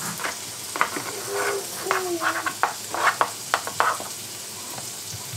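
Food frying in a pan on the stove, a steady sizzle, while a spatula scrapes and taps against plastic containers as food is scooped into a meal-prep box, giving a run of short clicks and knocks in the middle.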